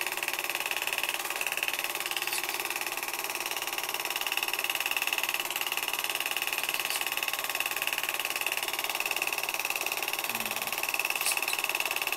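Film projector running behind silent home-movie footage: a steady mechanical whirr with hiss and a few faint clicks.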